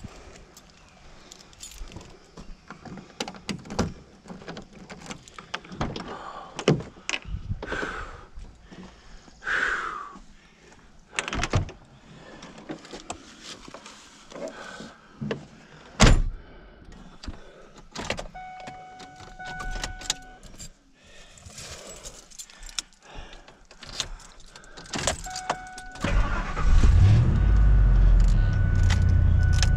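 Scattered knocks and jangling keys from getting into a vehicle, then a chime beeping steadily for a few seconds. About 26 seconds in the engine is started and keeps running loudly at idle.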